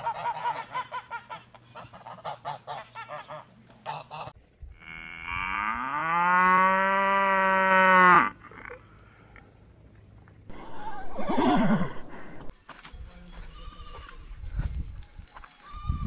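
Domestic geese honking in a quick run of short calls, then a cow giving one long, loud moo of about three seconds, the loudest sound here. A shorter call falling in pitch follows a few seconds later.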